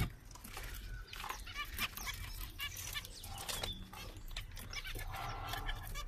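A flock of zebra finches calling: a dense run of short, nasal chirps and beeps from several birds at once, overlapping throughout.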